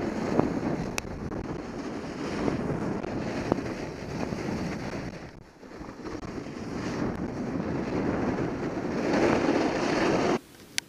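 Snowboard sliding and carving over hard, groomed snow, a steady scraping rush mixed with wind buffeting the microphone. It dips about halfway, grows louder near the end, then cuts off abruptly.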